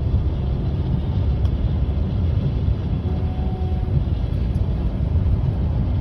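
Steady low rumble of a vehicle driving along a road, engine and tyre noise heard from inside the cabin.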